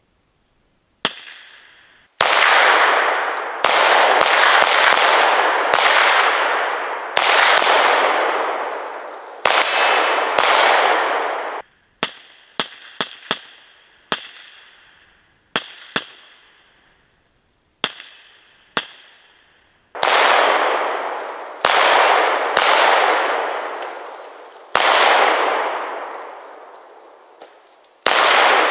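Arsenal SLR-104FR semi-automatic rifle in 5.45x39mm firing single shots at an uneven pace, about two dozen in all. The loudest shots leave long echoing tails, while a run in the middle is quieter with short tails. A brief metallic ring sounds about ten seconds in.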